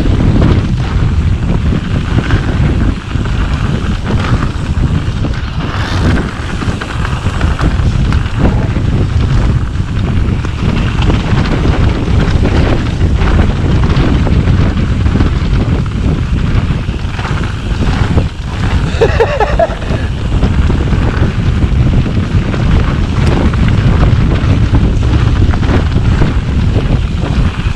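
A mountain bike riding down a dirt singletrack: wind buffeting the camera microphone over the rumble of the tyres on the trail and a steady run of rattles and knocks from the bike. About two-thirds of the way through, a brief wavering pitched sound rises above it.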